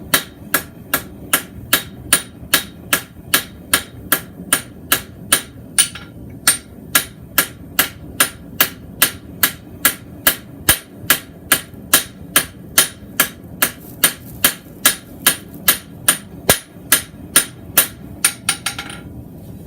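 Forging hammer blows on a mild steel bar over an anvil, a steady rhythm of about two strikes a second, each with a bright metallic ring, drawing the bar's end out into a small oval. The blows stop shortly before the end.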